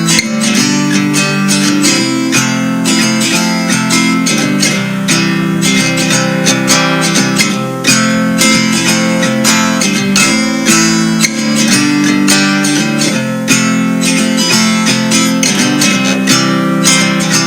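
Background music of strummed acoustic guitar with a steady beat.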